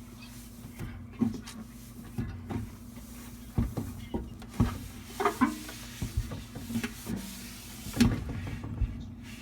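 Cloth wiping the inside of a microwave, with irregular knocks and bumps against its walls and a few short rubbing scrapes, over a steady low hum.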